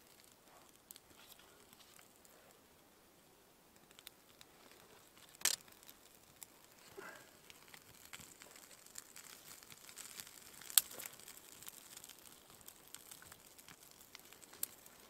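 Small kindling campfire just lit, crackling faintly as it catches and growing busier in the second half, with a few sharp snaps and the rustle of dry twigs being laid on.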